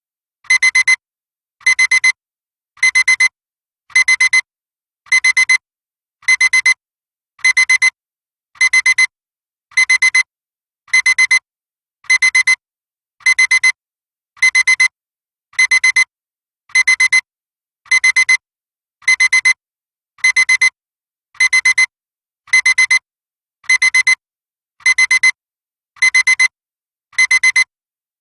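Classic digital alarm clock beeping: short clusters of quick, high-pitched beeps, repeating evenly about once a second.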